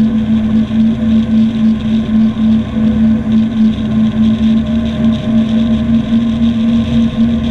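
Yamaha 212X jet boat's engines running at a steady speed, a steady drone with a slight pulsing beat and no change in pitch.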